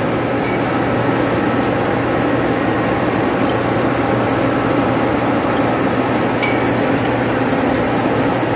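Steady drone of running pump-room machinery (electric motors and pumps) with a constant hum, with a few faint clicks of wrenches on the pump's flange bolts about two-thirds of the way in.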